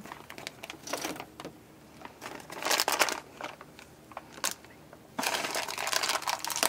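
Plastic packaging crinkling and rustling in irregular bursts as a small bag of metal S-hooks is handled, with one sharp click in the middle and a longer stretch of rustling near the end.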